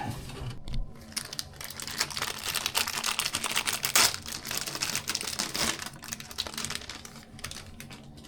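Rapid light clicking and rattling of computer hardware being handled as the old motherboard is worked out of the desktop case, thickest in the middle with the sharpest click about four seconds in.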